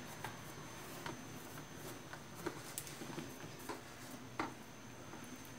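Hands pressing crumbly, buttery pastry dough into an aluminium pie pan: soft rubbing with a few light, irregular taps, one a little sharper about four and a half seconds in.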